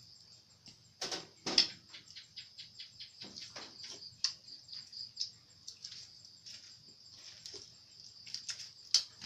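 Steady high-pitched insect chorus, crickets trilling in the night, with scattered sharp clicks and knocks over it, the loudest about a second and a half in and again near the end.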